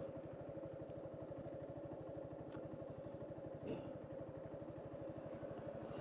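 Suzuki Gixxer's single-cylinder engine idling steadily and faintly, an even low pulse.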